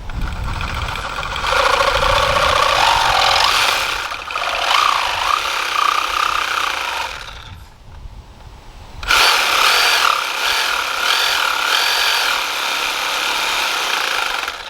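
A handheld power tool runs in two long bursts with a short pause between them, its pitch wavering and dipping as it bites under load.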